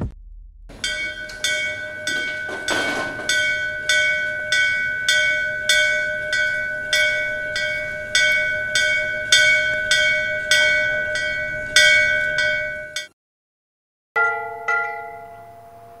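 Temple bell struck over and over, about one strike every 0.6 seconds, each ring running into the next; it stops suddenly about thirteen seconds in. After a second of silence, a second, lower-pitched temple bell is struck a couple of times.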